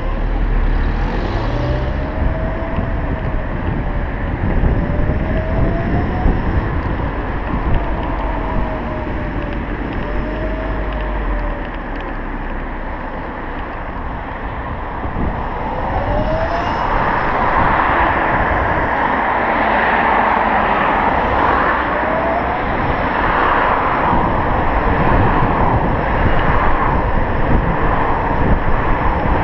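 Electric scooter on the move: a thin motor whine rises and falls in pitch as it speeds up and slows. Road and wind noise grow louder from about halfway through as it picks up speed.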